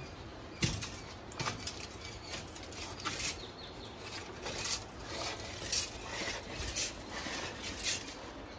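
Steel earth rod being worked by hand in a wet hole in the floor, grating and scraping against grit and concrete in short strokes about once a second.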